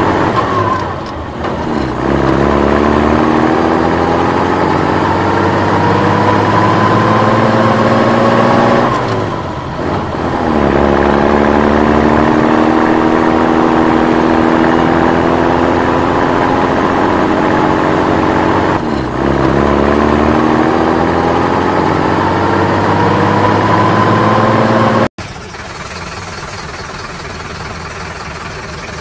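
An engine revving up, its pitch climbing slowly over several seconds, then dropping back and climbing again, three times over. About 25 seconds in it cuts off abruptly to a quieter, steady sound.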